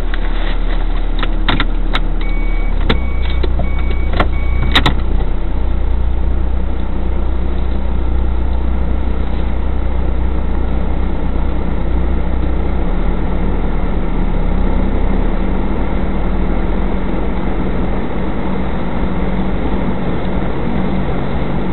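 Car engine and road rumble heard from inside the cabin through a dashcam microphone: a steady low hum. Several sharp clicks and a few short beeps come in the first five seconds.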